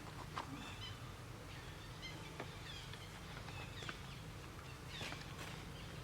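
Faint, scattered short high chirps and squeaks from animals, mixed with light clicks and ticks, over a steady low hum.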